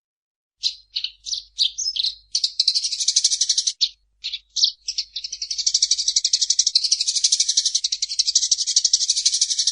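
Eurasian tree sparrow chattering: a few short separate chirps, then long runs of fast, rattling chirps with a brief break about four seconds in.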